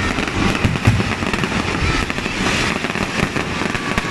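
Fireworks display going off in a dense, continuous crackling and popping barrage, with a louder bang a little under a second in.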